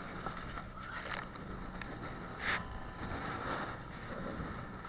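Wind buffeting the microphone and choppy river water washing against an inflatable boat, with a sharper slap of water about two and a half seconds in.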